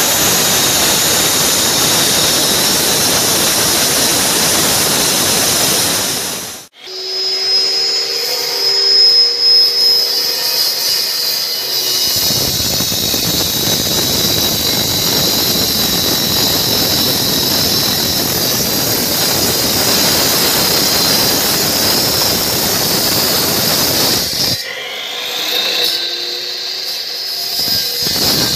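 Slab cutting machine's blade cutting through a concrete slab, a loud steady grinding hiss. About a quarter of the way in it cuts off suddenly, leaving a few seconds of the machine's whine before the cutting noise comes back. Near the end the noise thins again to a rising whine.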